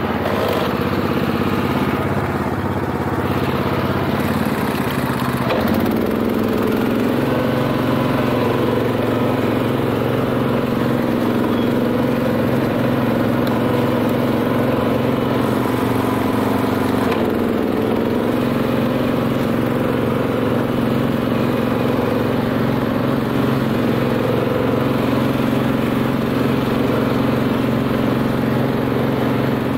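BCS 740 two-wheel tractor's Honda GX390 single-cylinder engine running steadily, driving a flail mower through grass; its note shifts slightly about six seconds in.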